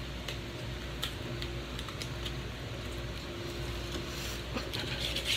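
Quiet room tone: a steady low hum with a few faint scattered clicks and taps.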